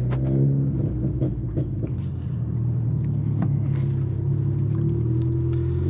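Volkswagen Golf R's 2.0 TSI EA888 four-cylinder turbo engine, heard from inside the cabin. The revs drop from about 1,900 rpm to a steady idle of about 1,000 rpm in the first half second, then begin to rise near the end. It runs smoothly without stalling, the fuel starvation cured by a new low-pressure fuel pump control module that holds about 6.2–6.4 bar.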